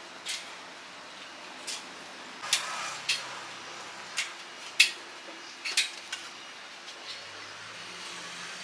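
Metal cooking utensils clinking and clattering: about eight sharp, irregular strikes over a steady background hiss, the loudest about five seconds in.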